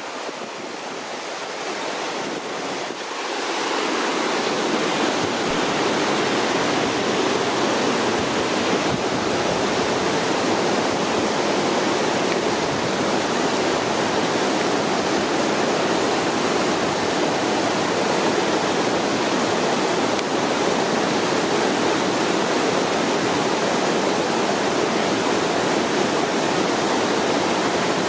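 Njupeskär waterfall: a loud, steady rush of falling water, growing louder about three to four seconds in and then holding steady.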